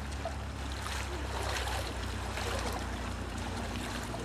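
Choppy lake water and wind noise, an even hiss with a steady low hum underneath.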